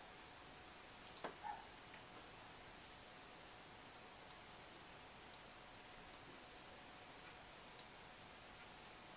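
Near silence with several faint, sharp clicks from a laptop's touchpad and mouse being clicked, including a quick pair about a second in and another pair near the end.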